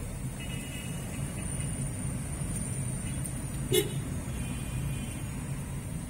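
Car's engine and road rumble heard from inside the cabin in city traffic: a steady low drone, with one short knock about four seconds in.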